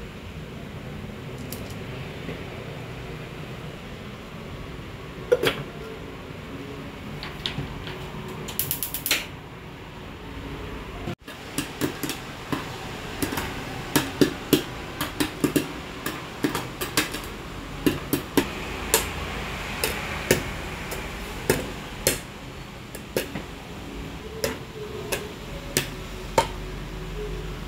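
Popcorn popping in hot oil in a lidded saucepan on a gas burner: a steady hiss with a few knocks and pops at first, then sharp pops coming several a second from about eleven seconds in.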